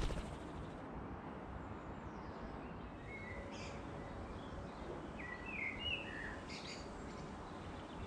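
Small garden birds chirping: a few short high chirps about three seconds in and a quick cluster of them between five and six and a half seconds, over a steady low outdoor rumble. A brief knock right at the start.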